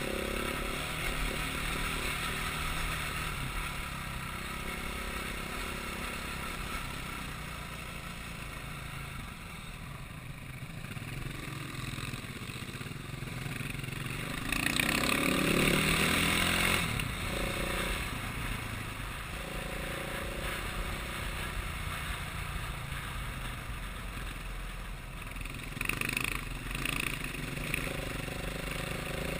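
A motor vehicle running steadily, with a louder rush of noise for a couple of seconds about halfway through and a shorter rise near the end.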